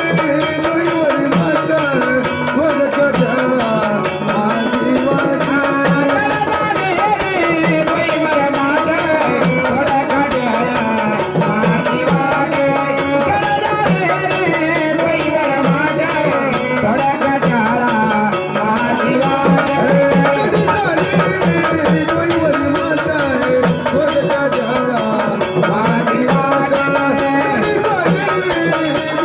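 Marathi gondhal folk music: a gliding melody line over a steady drone and a continuous hand-drum rhythm, with no sung words.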